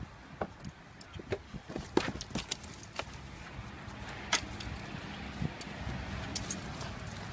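Yellow Labrador's metal collar tags jingling and clinking as the dog clambers around a car's back seat, with scattered knocks and clicks from its movement.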